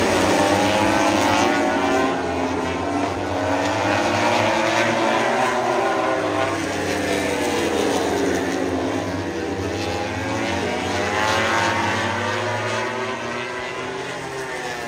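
Several racing motorcycle engines running at once, their pitches rising and falling and crossing one another as they pass and change speed.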